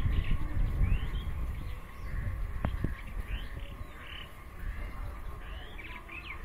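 Birds chirping with short, repeated chirps over a low rumble that fades after the first second or so, with a couple of sharp clicks midway.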